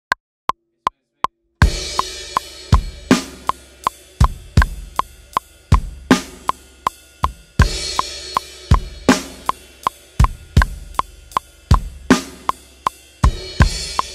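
A click track counts in four beats at 160 bpm. Then a drum kit plays a driving rock groove at that tempo, with kick and snare under steady eighth-note cymbal strokes and a crash cymbal accent every few bars, while the click keeps time underneath.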